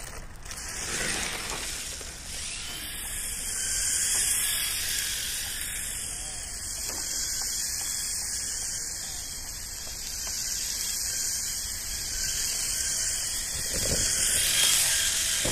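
HSP 94123 1/10 brushless RC drift car running and sliding on asphalt: a high hiss and whine from the electric motor and tyres, growing louder about fourteen seconds in as the car comes back close.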